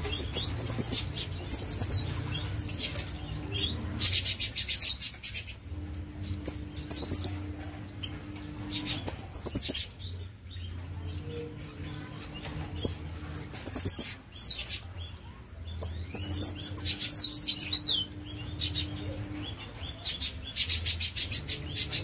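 Small songbirds chirping: repeated sharp chip notes and short, thin, very high-pitched phrases throughout, with a faint low hum coming and going underneath.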